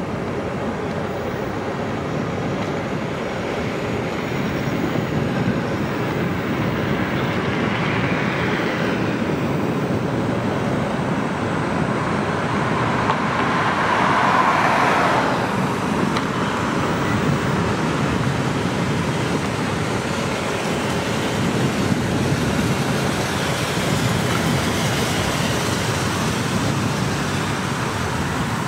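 Steady road and tyre noise of a car driving along a city street, with light traffic. About halfway through, a louder swell rises and fades as another car passes.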